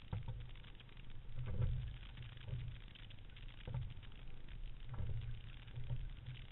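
Fluidesign single scull under way on short drill strokes: water running along the hull and wind rumbling on a boat-mounted camera's microphone, with a knock from the oars in their gates at each stroke, a little over a second apart, the loudest about a second and a half in.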